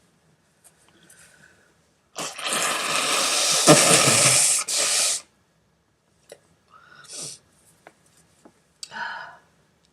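A woman's forceful blast of air close to the microphone, lasting about three seconds with a brief break near the end, from a sneeze-racked nose. After it come short, faint gasping breaths.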